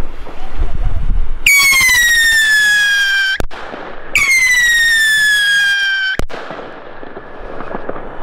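Two Nico Phantom fireworks rockets go up one after the other, each with a howling whistle that slides slowly down in pitch for about two seconds. Each whistle ends in a sharp bang as the rocket bursts, the first about three and a half seconds in, the second about six seconds in.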